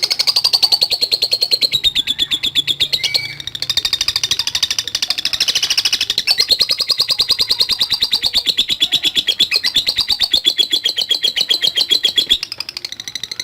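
Lovebird singing a long 'ngekek': a fast, continuous chatter of rapidly repeated high notes, breaking off briefly about three and a half seconds in and again near the end.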